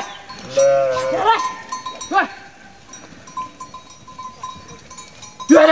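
A flock of sheep or goats bleating: a longer wavering call about a second in, a short one a second later, and another near the end. A faint ringing tone comes and goes underneath.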